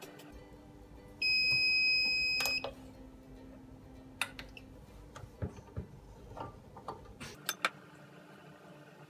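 Digital mug heat press timer beeping once, a steady tone about a second and a half long, signalling the end of the pressing cycle. It is followed by a few sharp clicks and knocks as the press is opened and the mug lifted out.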